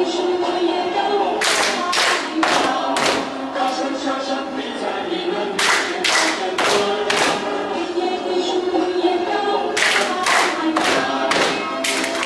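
A group singing a Chinese worship song about clapping hands, with hand claps in three bursts of several quick claps each, a few seconds apart.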